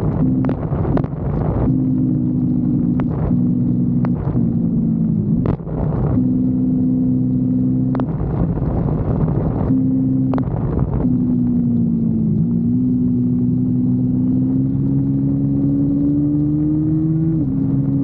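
Kawasaki Versys-X 250's parallel-twin engine running while the motorcycle is under way. Its pitch holds mostly steady with brief dips, rises slowly for several seconds near the end, then drops sharply. Short bursts of wind noise cut across it.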